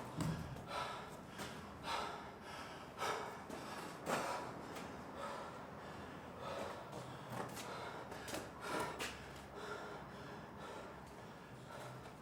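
A person's short, sharp breath sounds, repeating at irregular spacing about once a second.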